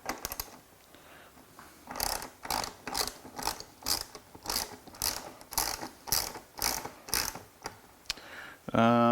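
3/8-inch drive hand ratchet with a 10mm socket tightening a seat-rail bolt, its pawl clicking in a steady run of strokes about two a second. A short, loud steady whir comes near the end.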